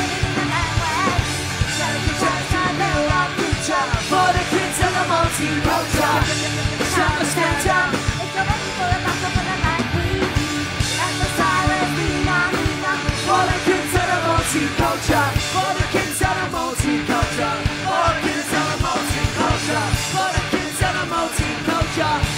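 A live punk band playing loudly: drum kit, electric guitars and bass under sung and shouted vocals.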